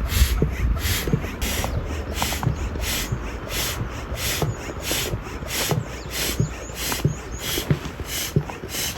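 Dog panting in a steady rhythm, about two and a half breaths a second, over the low rush of a flowing stream.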